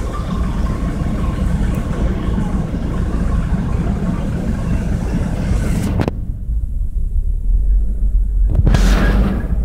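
Low rumble of vehicle noise in slow city traffic, with a hiss above it. About six seconds in the hiss cuts off suddenly, leaving mostly the low rumble. A short burst of noise follows near the end.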